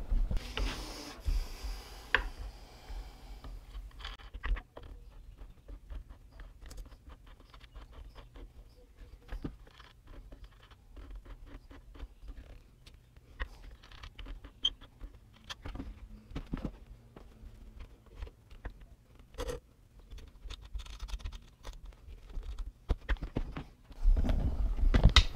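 Scattered clicks, taps and light scrapes of metal parts being handled: a screw being loosened and an angle grinder being slid sideways in the mount of a mower-blade sharpening jig, with the grinder switched off. Louder handling noise near the end.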